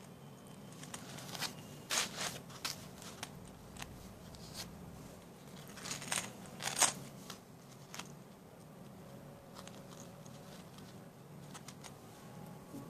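Metal chain links and clasp clicking and clinking as the chain is handled, in scattered short sharp clicks, clustered about two seconds in and again about six to seven seconds in, over a faint steady hum.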